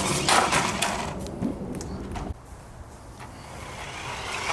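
Toy-grade 1:20 RC monster truck driving: its small electric motor whirs while the plastic truck clatters and knocks over rough ground. The sound stops suddenly about two seconds in, leaving a quieter background.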